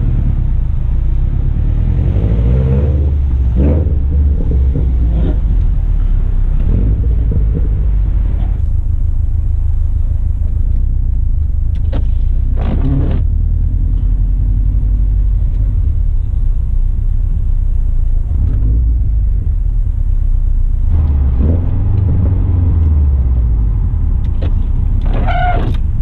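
Straight-piped 2008 Subaru Impreza WRX STI's turbocharged 2.5-litre flat-four running through a Tomei Expreme Ti exhaust with a deep rumble. It swells for a few seconds near the start and again from about twenty-one seconds in, and is quieter and steady in between. A few brief sharp sounds stand out, the last near the end.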